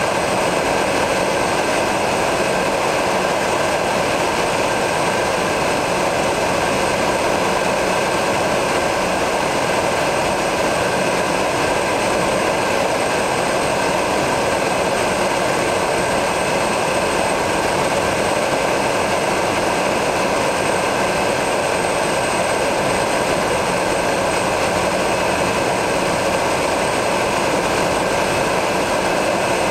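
A DHC-3 Turbo Otter's turboprop engine and propeller running steadily in flight, heard from inside the cockpit: an even drone with a thin high whine over it.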